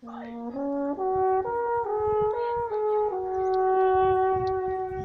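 A brass instrument played solo: a short melody of about six notes stepping upward and back, ending on one long held note that fades out near the end.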